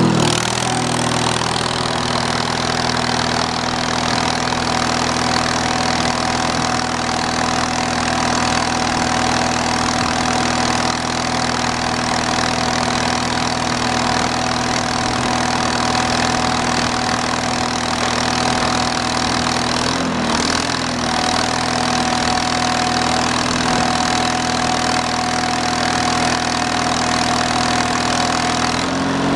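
Wisconsin Model THD gas engine running steadily under load, with a thin steady whine over it, while the conveyor's hydraulics fold the upper extension down. The engine note shifts about half a second in and shifts back at the very end, with a brief wobble about two-thirds of the way through.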